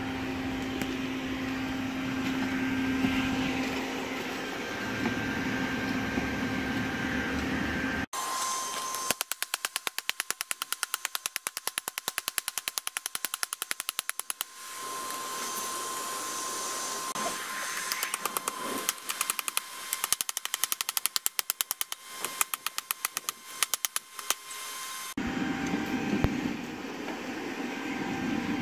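Hand hammer striking red-hot 5160 steel on an anvil in rapid, even blows, two long runs with a short pause, hammering in the knife's edge bevels. Before and after the hammering, a steady hum with a constant low tone, typical of a coal forge's air blower.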